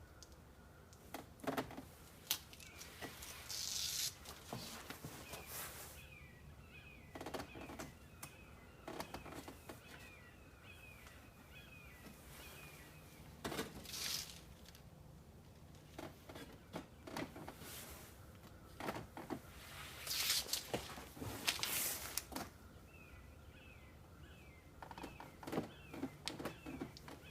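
Handling noise from working a rubber garage-door seal and 3M double-sided tape: scattered clicks and knocks with a few brief rustling, peeling bursts, the longest about four seconds in and around twenty to twenty-two seconds in. Runs of quick high chirps come and go behind it.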